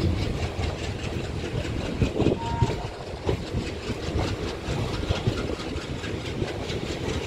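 Passenger train running, heard from on board beside the coach: a steady rumble of wheels on the rails with a running clatter of wheel clicks over the track.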